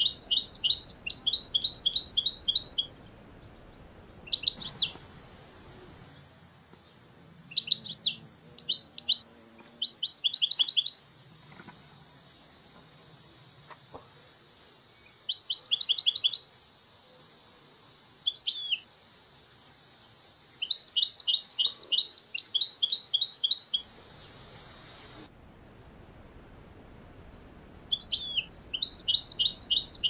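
European goldfinch singing: bouts of quick, high, twittering trills, each a second or a few seconds long, with short pauses between them.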